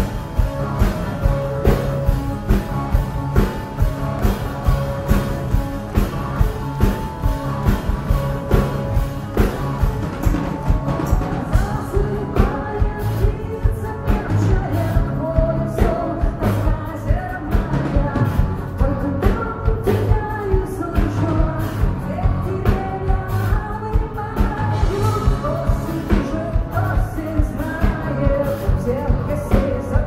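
Live rock band playing a song with a steady drum beat; a woman's voice comes in singing about twelve seconds in.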